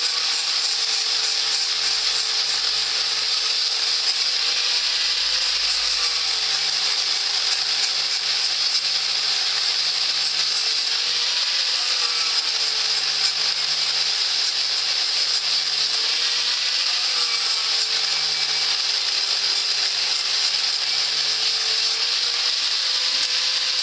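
Electric power tool with an abrasive wheel running continuously while deburring and polishing steel, a steady high hiss over the motor's whine. The motor's pitch dips and recovers every few seconds as the tool is pressed onto the metal and eased off.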